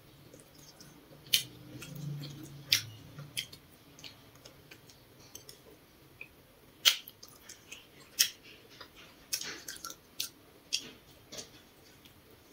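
Close-up eating sounds of a grilled potato cake being torn apart by hand and chewed: about a dozen sharp, irregular clicks and crackles, with a bite near the end.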